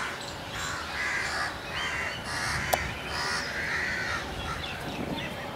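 Crows cawing: a run of harsh, repeated caws, with a single sharp click about halfway through.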